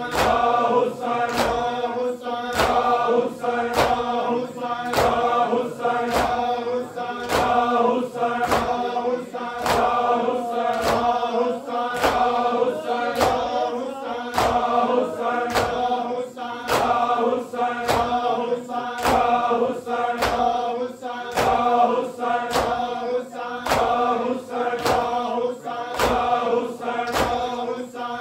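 A Punjabi noha chanted by a group of men, punctuated by a steady rhythm of sharp slaps as the crowd strikes their bare chests in matam.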